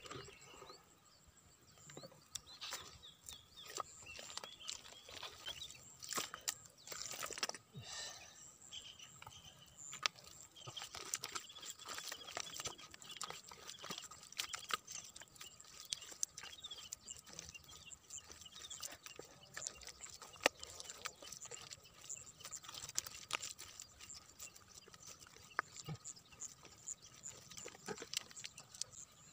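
Bare hands digging and scooping through thick wet mud, giving irregular wet squelches and slaps.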